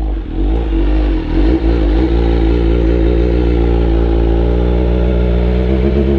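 Motorcycle engine running at low, fairly steady revs, getting a little louder about a second in.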